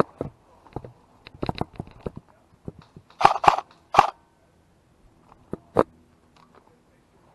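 Footsteps crunching and snapping through dry leaves and brush, irregular, with three louder crunches about three to four seconds in.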